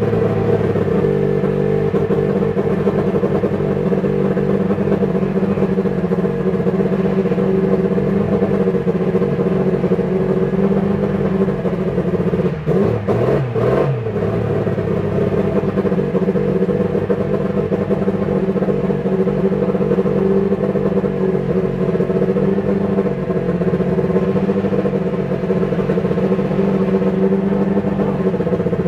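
Toleman TG184's Hart 415T 1.5-litre turbocharged four-cylinder Formula One engine idling steadily, faltering briefly about halfway through.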